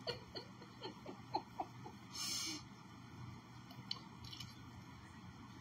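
Firm homemade ice cream being scraped out of an ice cream maker's bowl: a quick run of short scrapes and taps in the first two seconds, a brief louder scrape about two seconds in, then a few faint ticks.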